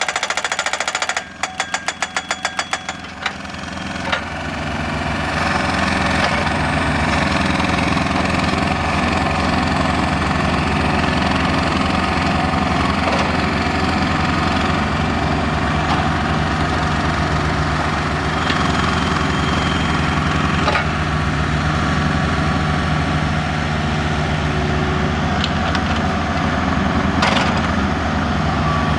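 Pile driver's hammer pounding in a quick train of rapid blows that stops about three seconds in, leaving the machine's engine running steadily.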